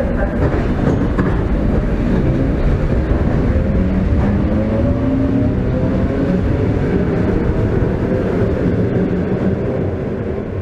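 Old suburban electric train running on the rails, heard through an open, unglazed vestibule window: a steady loud rumble of wheels on track, with a faint motor whine slowly rising in pitch.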